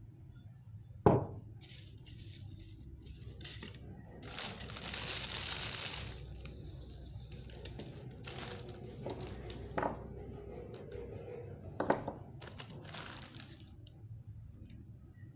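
Thin clear plastic bag crinkling and tearing as it is opened and handled, with a long tearing stretch about four seconds in and scattered crackles later. A single sharp knock about a second in is the loudest sound.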